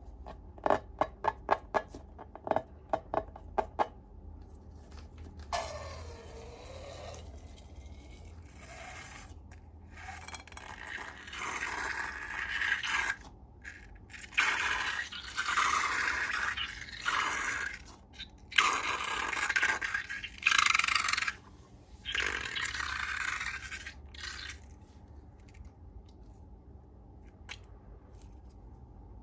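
A quick run of sharp clicks, then slime being worked by hand in bursts of scraping, squishing noise that grows louder in the middle and fades away near the end.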